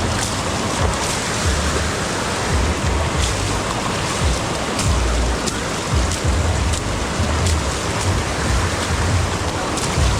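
Steady rain hiss with wind buffeting the microphone in low gusty rumbles, and a few sharp ticks scattered through it.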